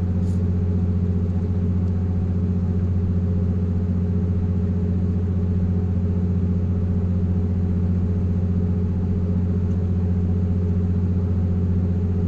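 Steady low drone of a ship's engine machinery, an even deep hum that holds the same pitch throughout. A faint click sounds near the start.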